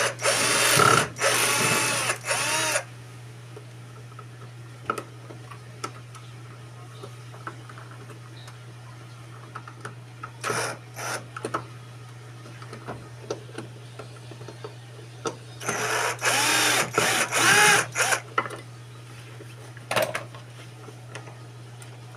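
Small cordless screwdriver whirring in two runs, its motor pitch rising and falling as it drives screws in the washing machine's drive mechanism, with a few short bursts and clicks of parts being handled between the runs.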